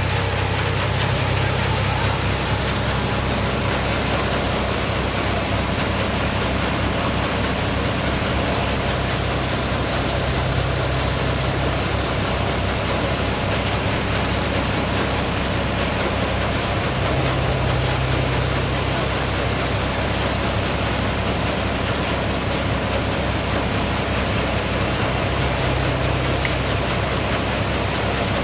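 Tractor-driven multicrop thresher of the tokri (basket) type running steadily under load as crop is fed in by hand: a dense, even noise from the threshing drum and blower over the tractor engine's steady drone, the low hum swelling slightly every several seconds.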